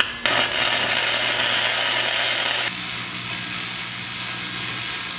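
Wire-feed welder arc crackling steadily as a table leg is tack-welded to the steel frame, with a low hum underneath; the crackle drops a little in level a bit under three seconds in.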